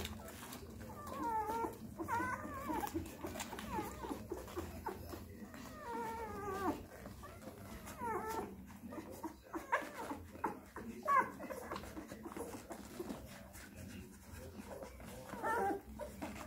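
Twelve-day-old Dalmatian puppies whimpering and squeaking while they nurse, many short, wavering calls one after another.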